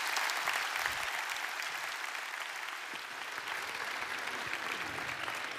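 Congregation applauding, steady clapping that slowly dies down.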